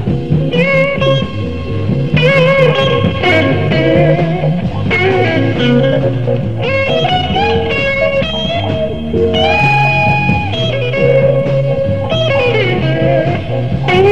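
Live electric blues band playing: an electric guitar takes the lead with sustained notes that bend and slide, over electric bass and drums.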